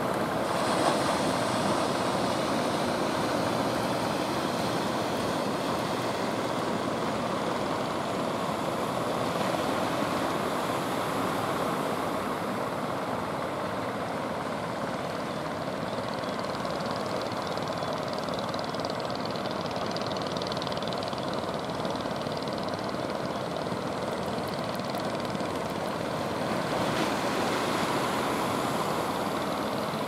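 Steady drone of motorised outrigger fishing boats' engines running through choppy water, growing a little louder near the end.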